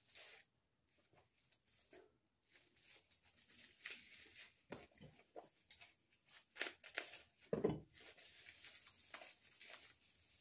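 Tissue paper and clear plastic packing wrap rustling and crinkling as they are pulled off a handbag and crumpled by hand, sparse at first and busier from about three seconds in. One louder thump comes a little past halfway.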